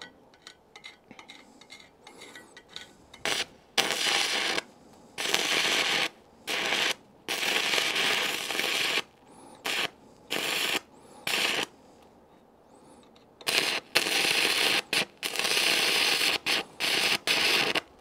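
Stick-welding arc from a 2.6 mm electrode on 36 volts of series-wired 12 V car batteries. A few light scratches as the rod is struck, then about three seconds in the arc catches as a loud hiss that breaks off and re-strikes again and again, running longer near the end. It is running hot, with too much current, and blowing holes in the 3 mm plate.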